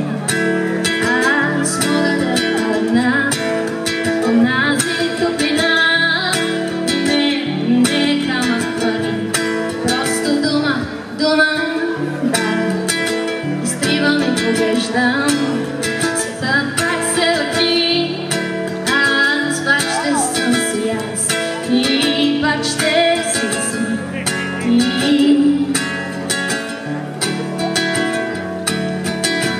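Live acoustic guitar strummed in a steady rhythm, with a woman singing over it.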